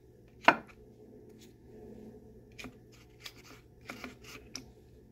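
Light taps and clicks of tomato slices being picked off a paper plate and laid on naan bread on a tray, with one sharp knock about half a second in and a few softer taps in the second half, over a low steady hum.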